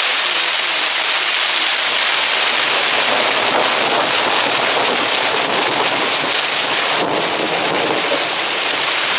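Heavy rain pouring down onto a wet road and pavement, a loud, steady hiss.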